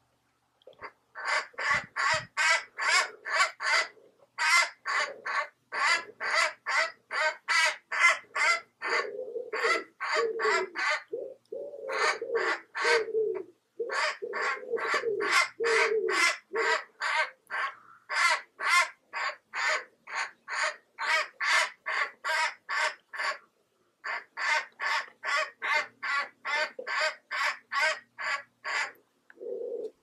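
Jackdaw distress calls: harsh, rapid caws, about three a second, in long runs broken by brief pauses, the alarm of a jackdaw caught and held down by a sparrowhawk.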